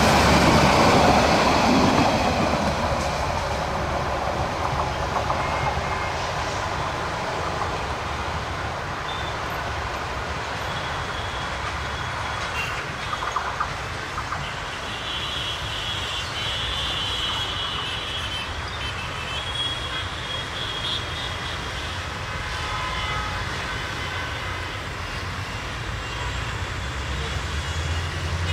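Passenger train coaches rumbling past close by on the rails, loud in the first couple of seconds, then fading to a steady distant rumble as the train runs away down the line.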